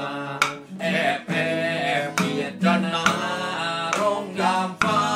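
A man singing while strumming an acoustic guitar, the voice carrying a wavering melody over steady strummed chords.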